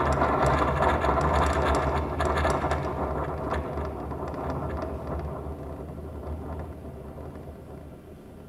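Amplified electronic noise from a live sound-art setup of mixer and transducers: a steady low hum with crackling on top. It fades away gradually, nearly gone by the end.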